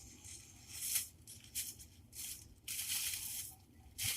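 Wig packaging being handled and opened, crinkling and rustling in irregular bursts.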